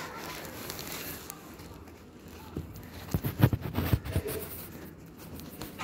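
Close rustling of woven sack bedding, with a burst of soft, low thumps about three to four seconds in.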